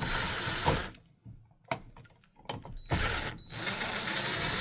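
Cordless drill/driver running in two bursts, driving the switch's mounting screws into the electrical box: a short run at the start, then a longer run of about two seconds from past halfway.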